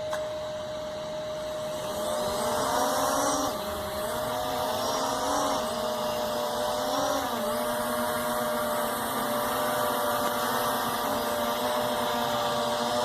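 Quadcopter drone's motors and propellers spin up about two seconds in, then buzz in flight with the pitch rising and dipping as the motors correct. From about halfway they hold a steadier pitch. This is a test flight after repair, and the drone is flying stably.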